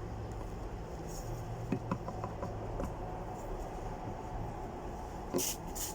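Quiet room tone with a steady low hum, a few faint clicks early in the pause, and a short rustle near the end.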